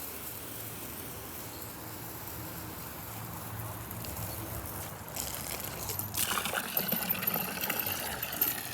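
Water running and splashing, starting about six seconds in, over a steady outdoor background hiss.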